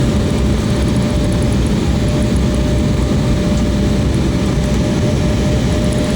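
Airliner cabin noise heard from a passenger seat: a steady rumble of engines and airflow with a faint, even whine, near the end of the flight.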